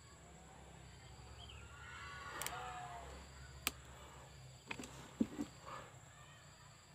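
Faint open-air background with a steady thin high-pitched insect drone and a couple of soft chirps. Several sharp clicks come between about two and five and a half seconds in.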